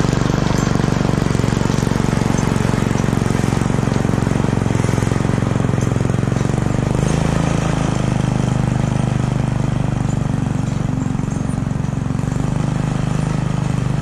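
Small engine of a homemade garden tractor running steadily, its exhaust going through a homemade muffler fitted inside a straight pipe.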